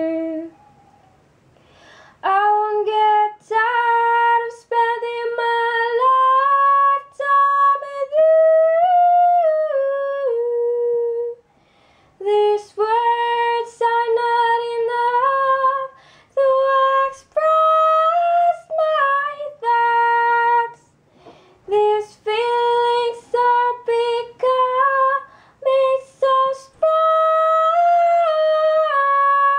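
A woman singing a melody without an accompaniment, on wordless syllables in short separate notes, with a few brief pauses between phrases.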